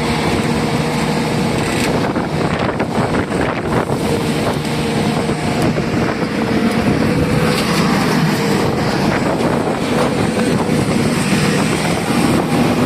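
Heavy diesel engine of an excavator or truck running steadily at an even speed, with a few short knocks a couple of seconds in.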